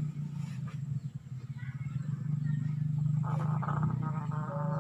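A sleeping chicken snoring: a low, steady rasping rumble. A higher-pitched sound joins over the last second and a half.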